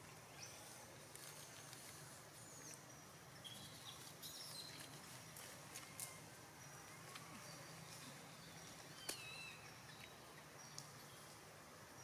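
Quiet outdoor woodland ambience, almost silent, with a few faint short high chirps and scattered soft clicks.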